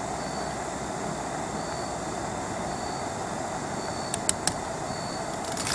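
Steady rushing noise, with a faint high chirp repeating about every two-thirds of a second. Metal tongs click against the pot of boiling broth a few times about four seconds in and again near the end.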